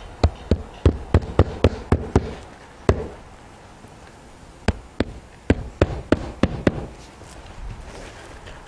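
Asphalt shingle being hammered down with 1¼-inch roofing nails: a quick run of about nine sharp blows, a short pause, then about seven more.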